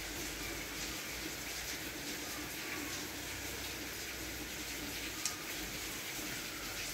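Faint steady background noise with a low hum, and a single small click about five seconds in.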